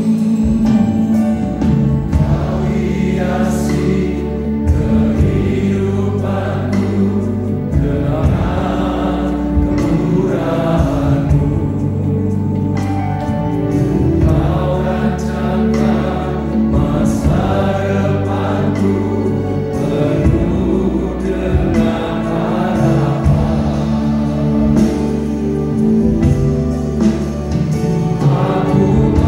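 Worship song sung by a group of voices over instrumental accompaniment with sustained bass notes that change every few seconds.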